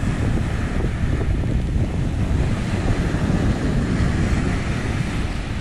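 Wind buffeting the microphone over the steady wash of sea surf breaking on the shore.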